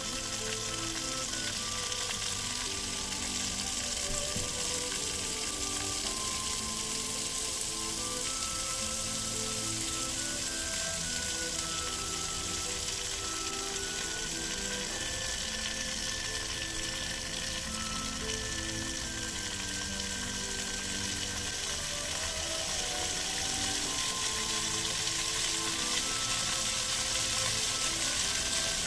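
Water jets of an illuminated display fountain hissing and splashing steadily. The spray grows somewhat louder near the end as a ring of extra jets shoots up. A melodic tune plays along with it.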